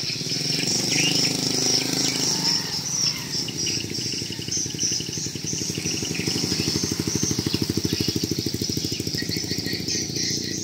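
Swiftlet calls from a swiftlet house's lure speakers: high chirping twitters that repeat steadily. A rapid low pulsing buzz runs underneath, strongest in the second half.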